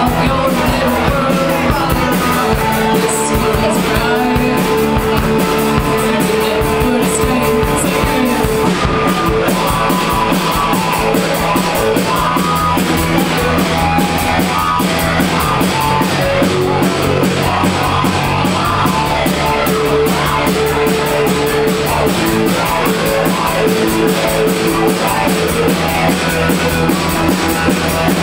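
Live rock band playing: electric guitar, electric bass and a drum kit going together at a steady level throughout.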